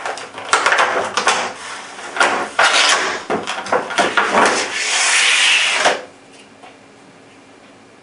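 Stiff clear plastic packaging crackling and clattering as it is opened and a rifle stock is pulled out, with a longer scraping slide near the end. It stops suddenly about six seconds in, leaving quiet room tone.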